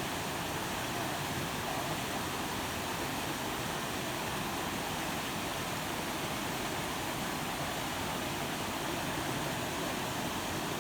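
Steady, even rushing noise at a constant level, with no distinct tones or sharp sounds.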